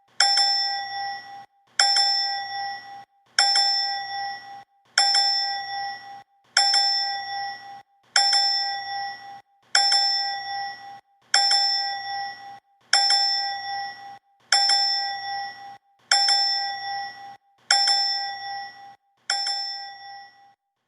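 A bright bell-like 'ding' sound effect, struck again about every second and a half, about thirteen times. Each strike rings out and fades before the next.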